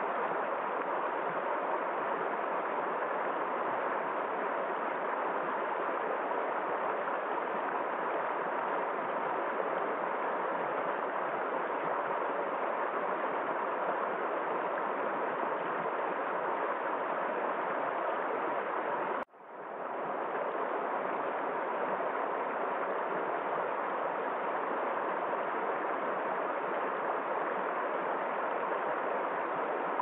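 Shallow rocky river rushing steadily over stones in small rapids, a constant dense hiss of moving water. About two-thirds of the way through, the sound cuts out abruptly and fades back in over a second.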